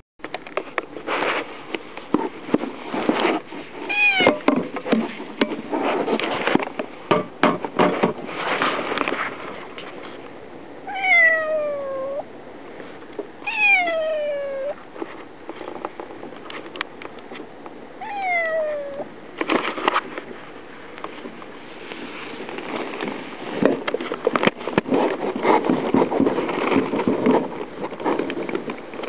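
Kitten meowing four times, each meow falling in pitch, amid clicking and rustling noises that grow stronger near the end.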